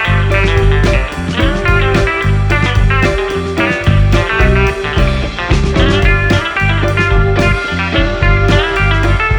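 Background music: an instrumental rock track led by guitar over a steady beat.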